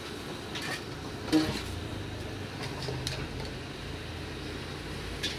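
Steady low street hum, with a few light knocks and one sharper clink about a second and a half in, from a steel bowl and pot as pieces of cooked paye are moved by hand between them.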